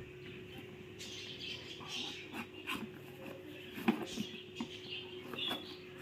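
Cardboard parcel and its plastic packing tape being handled and picked at by hand, with a small cutter: a series of short clicks, crinkles and scrapes, the sharpest about four seconds in, over a steady low hum.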